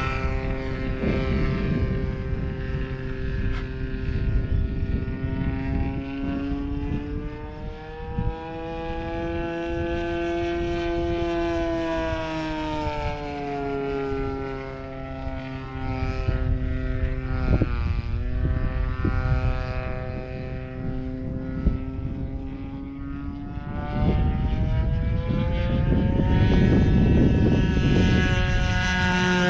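Radio-controlled model airplane's motor and propeller droning overhead, its pitch rising and falling as the plane changes throttle and passes; one quick dip and rise in pitch at a fast pass about two-thirds of the way through, and a sharp fall in pitch at the very end. A low rushing noise grows louder over the last few seconds.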